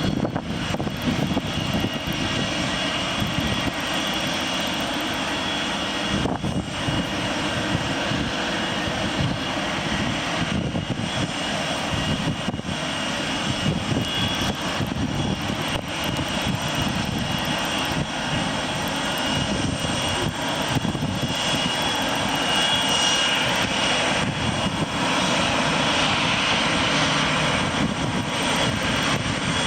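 Boeing 747-400's jet engines running at low taxi power as it moves into its parking spot: a steady rushing noise with a thin high whine, swelling slightly about three quarters of the way through.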